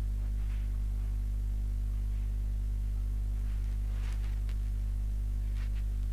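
Steady electrical mains hum on the recording microphone, with a few faint clicks from about four seconds in.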